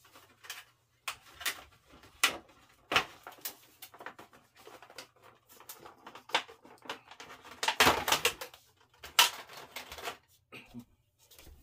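Rummaging through small hard objects in search of a lighter: an irregular run of clicks, taps and clatter, busiest about eight and nine seconds in.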